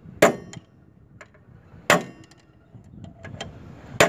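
Hammer striking the end of a long steel drift rod held against a collar on a tractor's crown-wheel shaft: three sharp metallic strikes about two seconds apart, each briefly ringing, with lighter taps between. The blows are driving the collar into its seat.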